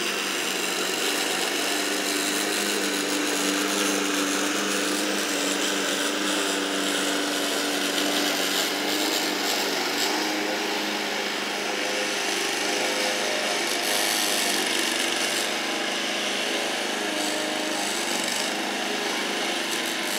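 Walk-behind gasoline push mower's small engine running steadily while cutting grass, heard from a distance.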